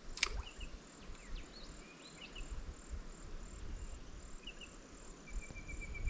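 Insects chirring steadily in a high, pulsing tone, about two pulses a second, with a few short bird chirps and a rapid run of short notes from about five seconds in. A single sharp click sounds just after the start, over low rumbling.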